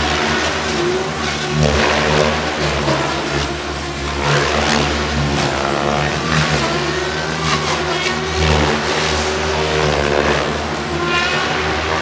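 A radio-controlled aerobatic helicopter in flight, its rotor and motor sound rising and falling in pitch again and again as it swoops and flips through manoeuvres.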